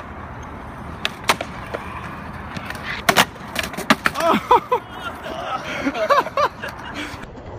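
Skateboard wheels rolling on concrete with a few sharp clacks of the board, then a loud slam about three seconds in as the skater falls. Voices cry out twice afterwards.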